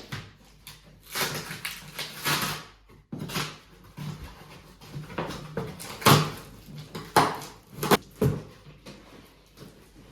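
Large cardboard shipping box being opened and handled: ripping and rustling, with several sharp knocks.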